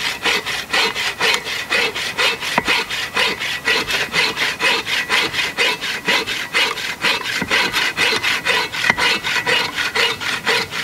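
Agawa folding bow saw with its multi-purpose blade cutting through dry hophornbeam (ironwood) in quick, even back-and-forth strokes, each stroke a rasp.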